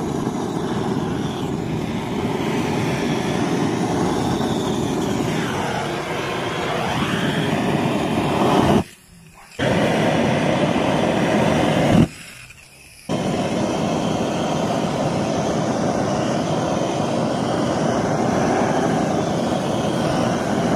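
Handheld gas torch on a fuel canister, its flame blowing steadily as it scorches pine boards for a burnt-wood finish. The noise cuts out sharply twice near the middle, for about a second each time.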